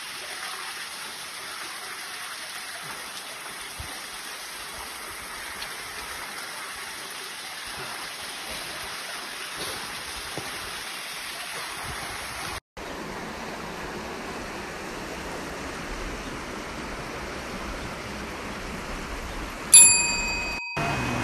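Steady rush of a waterfall's falling water, broken by a brief gap about two-thirds of the way through. Near the end a single loud bell-like ding rings out and fades over about a second.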